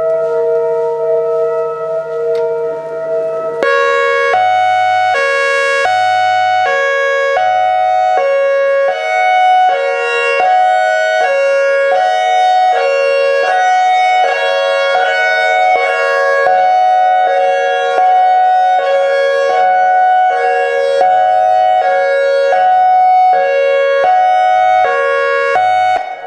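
ACA AR-1600 Alertronic electronic siren, at first holding a steady chord of tones. About three and a half seconds in it switches to its hi-lo signal: two pitches alternating, each held a little over half a second.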